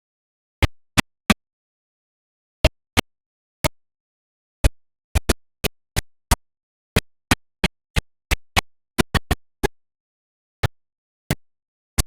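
A series of about two dozen sharp, very short clicks or pops at irregular intervals, some bunched closely together, with dead silence between them.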